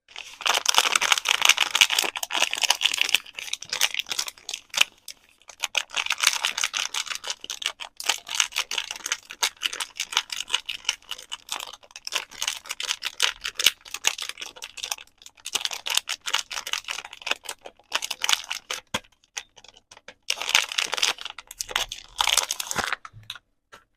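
Soap packaging being handled and unwrapped, crinkling and crackling in dense bursts with short pauses between them. It stops abruptly near the end.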